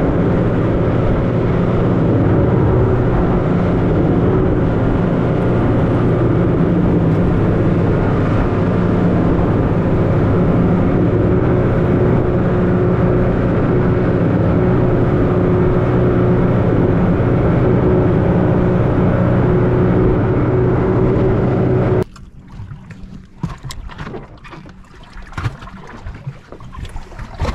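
Motorboat engine running steadily under way, with wind and water noise, then cut back abruptly near the end, leaving a much quieter stretch with a few light knocks.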